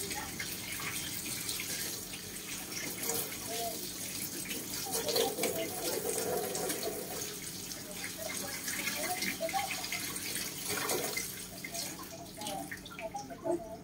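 Water running from a kitchen tap into a stainless steel sink as a bunch of leafy herbs is rinsed under it by hand, a steady splashing hiss.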